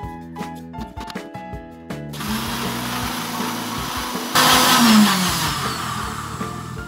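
Electric mixer-grinder blending a liquid batter of eggs, milk and sugar. The motor starts about two seconds in and gets louder about four seconds in. It then winds down, its hum falling in pitch, before the end.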